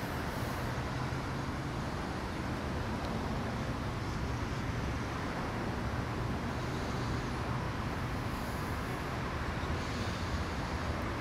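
Steady outdoor background noise: an unbroken low rumble and hiss, like road traffic, with no distinct events.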